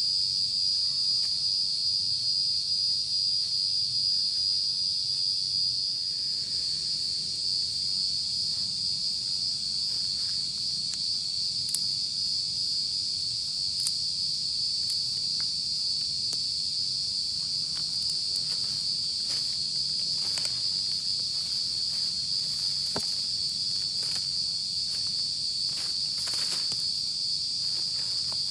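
Chorus of night insects: a steady, continuous high trill, with faint scattered clicks.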